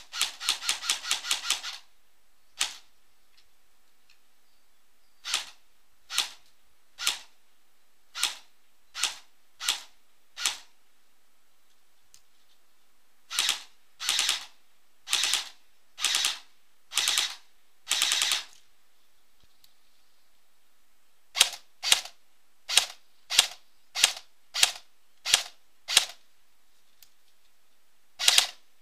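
ASG M15 S.I.R. Sportline electric airsoft rifle firing: a rapid full-auto burst at the start, then single shots about a second apart. Several short bursts follow in the middle, then quicker single shots and more bursts near the end.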